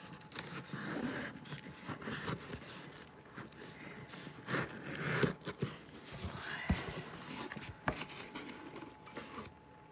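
Packing tape on a cardboard box being slit along the seam with a knife blade and the cardboard flaps pulled open, making irregular scrapes, tape rasps and rustles, with two sharp knocks in the second half.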